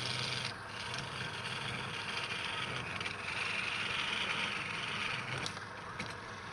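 Wood lathe running with a steady low hum, while a turning tool cuts the spinning wood: a hiss that swells and fades with each pass, and a few sharp ticks near the end.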